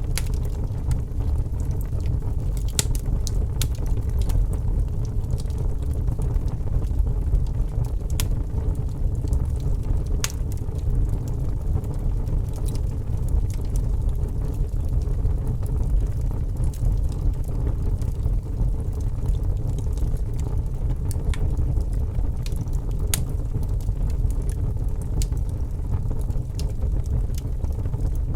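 Wood fire in a fireplace crackling, with sharp pops at uneven intervals over a steady low rumble.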